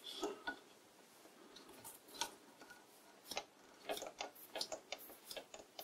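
Faint, irregular clicks and ticks as the vintage lathe spindle, its bronze bearings just adjusted, is turned over by hand with its flat drive belt to check the bearing feel. The clicks are sparse at first and come a few per second in the second half.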